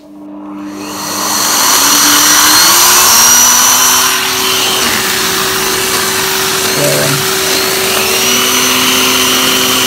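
Numatic Harry cylinder vacuum cleaner switched on: the motor spins up over the first second or two, then runs steadily, with a high whine over its hum as it draws air through an air-driven turbo brush head.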